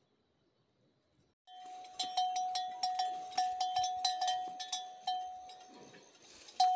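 Near silence for the first second and a half, then a metal livestock bell on a grazing water buffalo clanking over and over. Each strike rings on a steady note, about three strikes a second, growing fainter near the end.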